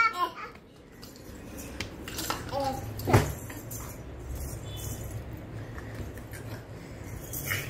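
Scattered clicks and clinks of small hard objects being knocked and handled, the loudest about three seconds in, over a low steady hum, with one brief voice sound a little before it.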